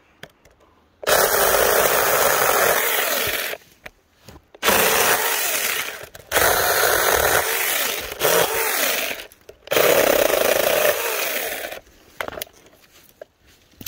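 Handheld mini chainsaw cutting through a tree branch in four runs of about one and a half to three seconds each, with short pauses between.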